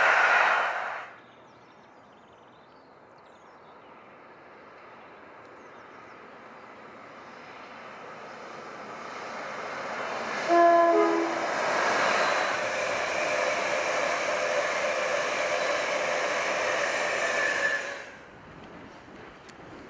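Electric locomotive hauling a train of coaches at speed: a rumble that builds as it approaches, a short horn blast about halfway through, then the loud run of the train passing, which stops abruptly near the end. It opens with the loud tail of another passing train that cuts off after about a second.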